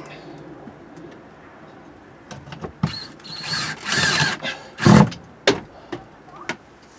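Cordless drill driving a screw into an RV window frame, running for about a second and a half. A loud thump follows, the loudest sound here, then a few sharp clicks.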